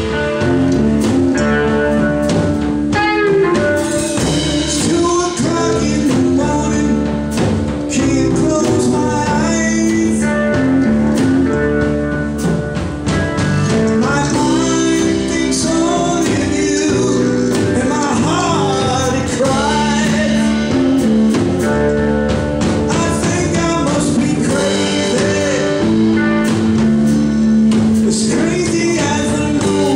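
Live blues band playing a song: electric guitar, bass guitar, drum kit, keyboard piano and congas.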